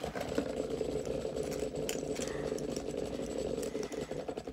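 Beyblade spinning tops whirring steadily, with a fine rapid rattle.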